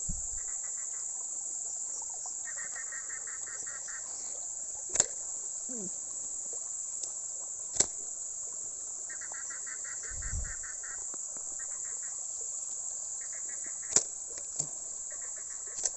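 Night insect chorus: a steady, high-pitched drone of crickets, with short bouts of a lower pulsing trill. A few sharp clicks break through it, about five in all and louder than the chorus.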